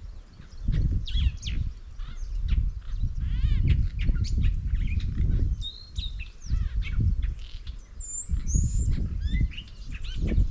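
Several birds chirping and calling in quick, varied notes, over a low, uneven rumble.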